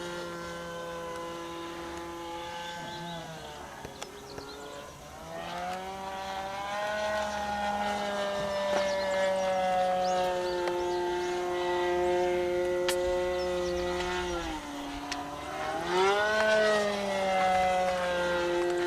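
Radio-controlled model airplane engine running in flight, a steady high whine whose pitch drops and climbs back twice as the plane passes and turns.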